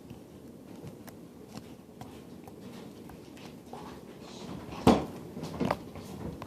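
Cloud slime squished and stretched close to the microphone: faint scattered crackling clicks, with a sharp pop about five seconds in and a smaller one just after.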